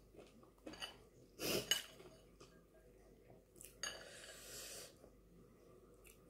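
Metal spoon clinking and scraping against a glass bowl while stirring and scooping chana chatpate: a few separate clinks, the loudest pair about one and a half seconds in, and a longer scrape at about four seconds.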